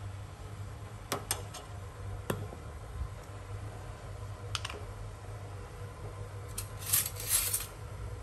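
Scattered light metallic clicks and taps of a metal ladle against a stainless steel cooking pot, with a louder brief cluster of clinks near the end, over a steady low hum.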